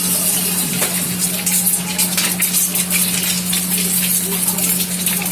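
Fried rice sizzling in a wok over a high-flame burner: a steady crackling sizzle over a constant low hum.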